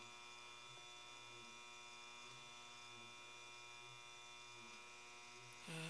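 Faint, steady electric hum from the Taig lathe's motor drive turning the chuck slowly at about 70 RPM, with a soft low pulse repeating a little more than once a second.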